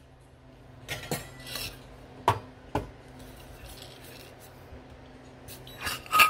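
Stainless steel coffee bean bottle and metal dosing cup being handled: scattered metallic clinks and knocks, the loudest near the end, ringing briefly.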